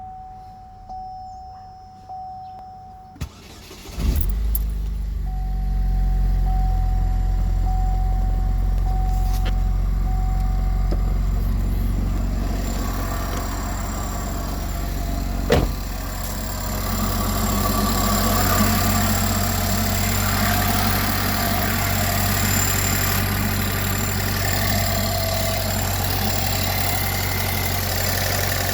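A warning chime beeps about once a second, then the starter cranks briefly and the 2008 Pontiac Solstice GXP's turbocharged 2.0-litre four-cylinder catches about four seconds in and settles into a steady idle. From about twelve seconds a hissy, whirring 'winding noise' builds over the idle, with one sharp click near the middle. The noise comes only with a cold engine and goes away once the engine warms up.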